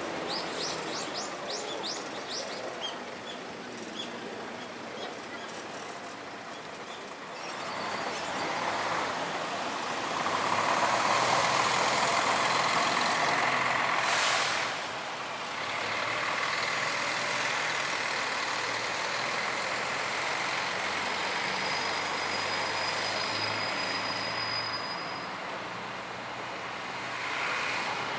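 A heavy vehicle passes close by. Its noise builds for several seconds, a short sharp hiss of released air comes about halfway through, and steady running noise follows, with a thin high whine for a few seconds near the end.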